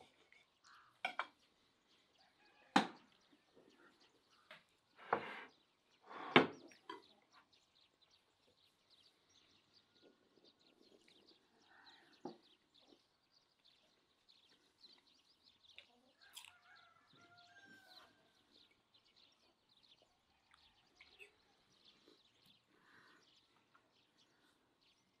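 Knife and fork clinking and scraping on a plate while cutting grilled meat, with a few sharp knocks in the first seven seconds and softer taps after. A faint animal call about sixteen seconds in.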